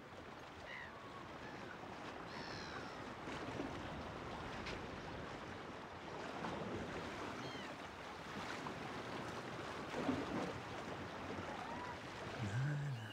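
Sea waves washing steadily, with wind, and a few short high gliding calls scattered through.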